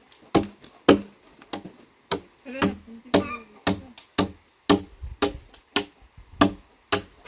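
A steady series of blows from a hand tool on timber, about two strikes a second, some with a faint high ring.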